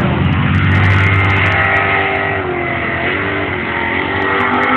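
Off-road vehicle's engine running loud under load, its pitch wavering up and down a little.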